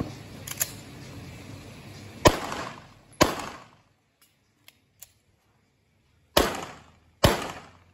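Handgun shots: four shots in two pairs, the shots in each pair just under a second apart, each followed by a short echoing tail. A few faint clicks between the pairs.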